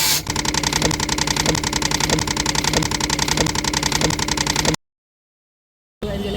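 Ring saw machine running with a fast, even rattle, a sound the demo treats as a problem. It cuts off suddenly to dead silence near the end, and another machine sound starts just before the end.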